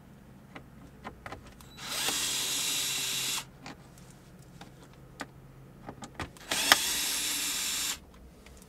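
Cordless electric screwdriver backing out two screws from the center console trim: two runs of the motor, each about a second and a half long, with light clicks of handling between them.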